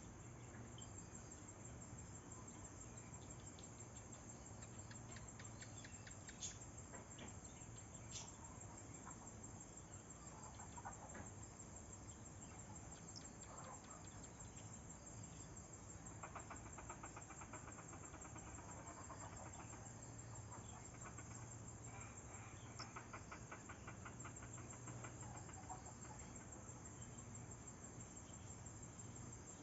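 Faint insect chorus, crickets among them: a steady high-pitched trill, with stretches of rapid pulsed chirping about halfway through and again later, and a few brief sharp chirps.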